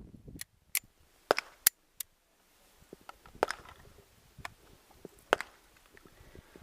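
Sharp metallic clicks and clacks of a semi-automatic pistol being loaded and made ready: magazine seating, slide racking and the gun going into its holster. They come quickly in the first two seconds, then scattered.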